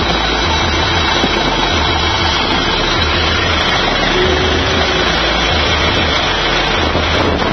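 Massey Ferguson tractor engine running steadily and loudly close up, with a low throb that swells roughly once a second.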